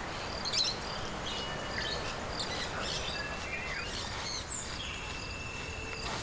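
Outdoor ambience of birds chirping and calling, scattered short calls and one longer held note, over a steady background hiss.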